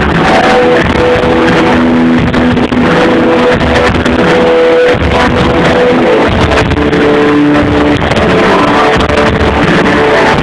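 Live rock band playing loud: electric guitar over drums, with held guitar notes throughout.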